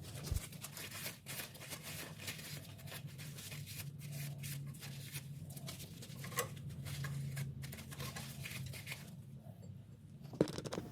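Faint scratching, rustling and small irregular clicks of hands wiping and handling brake caliper parts, over a low steady hum.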